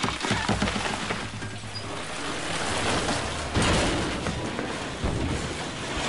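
Crashing, rumbling sound effect of a cabin ceiling caving in under water from a hot tub that won't shut off, loudest about three and a half seconds in, mixed with music.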